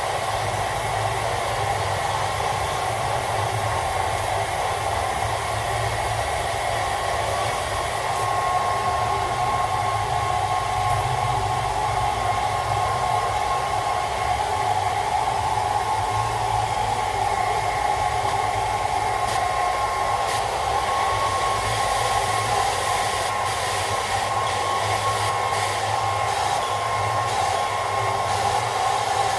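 Handheld hairdryer running steadily, a constant blowing whir with a steady hum, its airflow aimed at a cat's fur.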